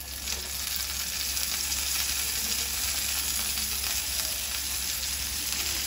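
Oil sizzling steadily around stuffed kantola (spiny gourd) halves shallow-frying on a medium flame, as the pieces are turned over with tongs.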